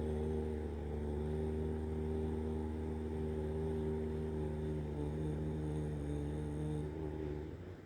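A man's voice humming one long, steady low note as part of a pranayama breathing exercise. The hum stops about seven and a half seconds in.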